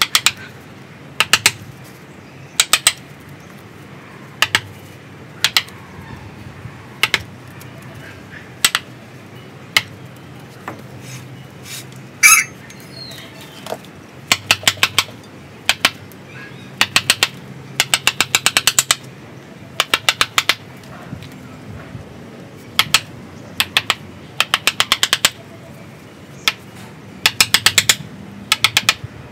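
Wooden mallet striking the handle of a steel carving chisel as it cuts into a bonsai trunk: sharp taps in short groups of a few strikes, with pauses between. A quicker run of taps comes a little past the middle.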